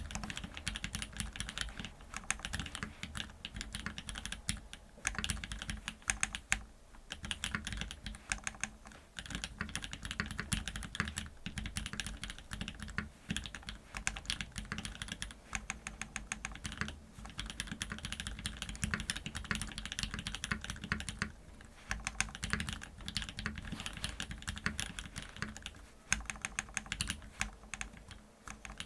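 Steady, fast typing on a custom mechanical keyboard fitted with lubed (Krytox 106), filmed Cherry MX Black linear switches with Hyperglide stems on a top-mounted FR4 plate under GMK keycaps: a dense run of key strikes and bottom-outs with a few brief pauses.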